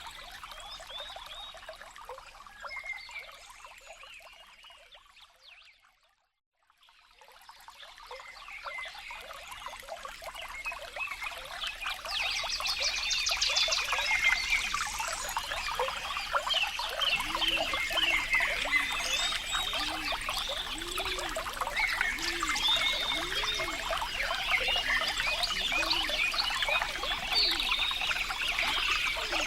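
Water trickling and pouring steadily. It fades out to silence about six seconds in, then fades back in and grows louder. From about the middle, low croaking calls repeat roughly once a second over scattered high chirps.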